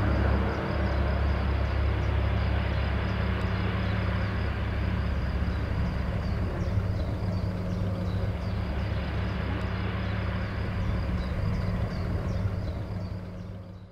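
Douglas DC-3 Dakota's twin radial piston engines at take-off power as it lifts off and climbs away, a steady deep drone that slowly grows fainter and fades out near the end.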